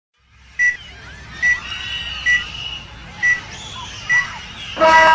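Film countdown leader beeps: a short, high beep about once a second, six times, over a faint crackly hiss. Music starts abruptly near the end.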